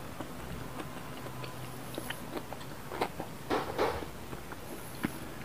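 Close-up eating sounds: chewing and small mouth clicks, with louder slurps of spicy noodle soup sipped from a ceramic spoon about three to four seconds in.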